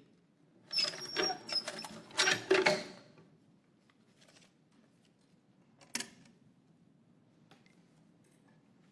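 Wooden hand-cranked lottery drum clattering for about two seconds, a quick run of clicks and rattles, followed by one sharp knock about six seconds in.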